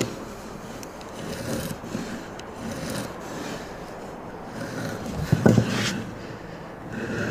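A scrap wood block with a pencil on it sliding and rubbing over a plywood sheet against the sawhorse legs, marking them to height, with a louder knock about five and a half seconds in.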